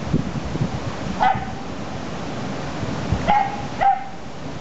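A small dog barking three times: one short bark about a second in, then two more in quick succession near the end.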